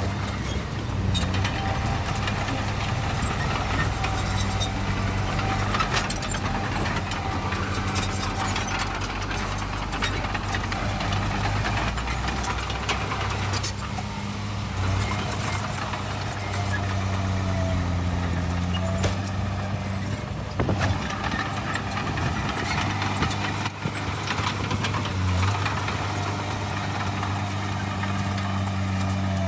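Diesel engine of heavy earthmoving machinery running steadily, its engine speed dipping and picking up again a few times, with occasional short knocks.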